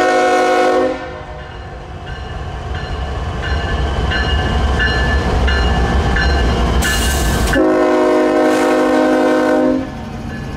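CSX GE Evolution-series diesel locomotives running light, sounding a multi-chime air horn: a short blast at the start and a long one about seven and a half seconds in. A deep diesel rumble builds between the blasts as the units pass close by.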